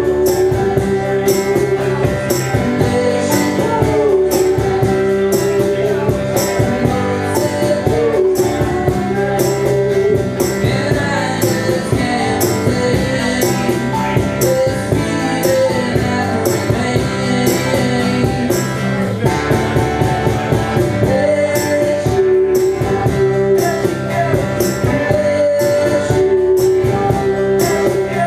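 Live acoustic band playing: a strummed acoustic guitar and keyboard over a steady percussion beat, with a male lead vocal singing the melody.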